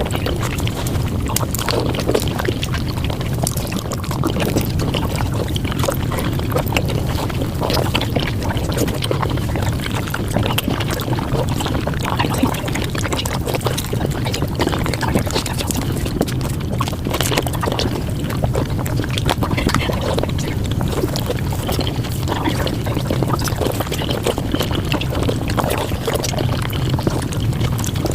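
Close-miked mukbang eating sounds sped up to five times normal speed: a dense, unbroken stream of rapid wet chewing and mouth clicks.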